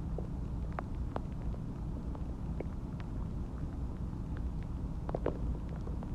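A person's stomach and intestines gurgling while digesting a meal and water. A steady low rumble carries scattered short pops and clicks, with a brief squeaky gurgle about five seconds in.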